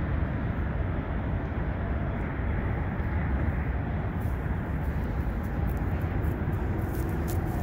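Steady low rumble of road traffic on an elevated highway deck overhead, with a few faint ticks near the end.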